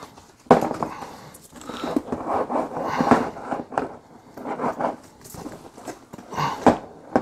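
Handling noises of a Milwaukee PACKOUT tool bag: irregular knocks, scrapes and rustling, with a sharp knock about half a second in.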